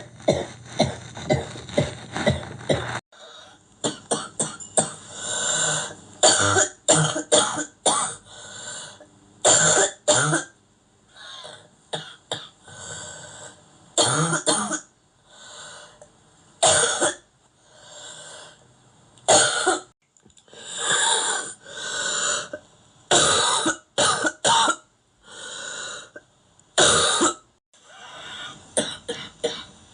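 A person coughing over and over in fits, with short pauses between bouts; the sound changes abruptly about three seconds in.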